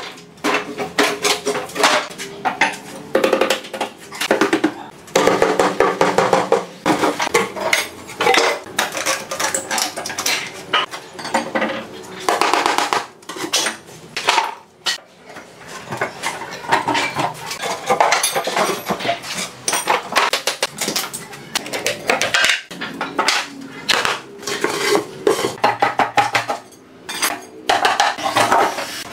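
Wooden formwork boards being knocked and prised off cast concrete with a hammer and dropped onto a concrete floor: a near-continuous series of sharp clattering knocks and plank clatter, some with a short ringing.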